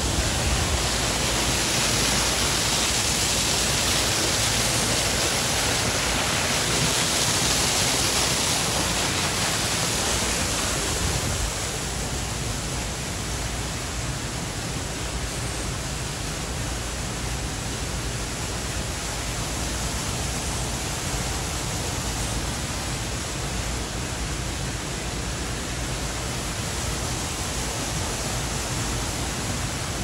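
Steady rushing of flowing water from an exhibit's waterfall or stream. It is louder for about the first ten seconds, then continues lower and even.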